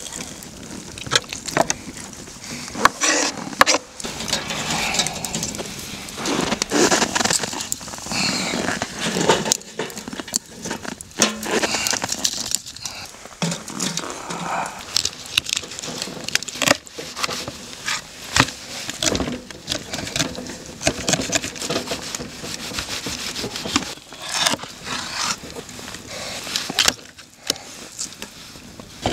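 A knife scraping and cutting a pike on a wooden cutting board, with frequent sharp clicks and knocks, and split firewood being laid into a fire pit with wooden knocks.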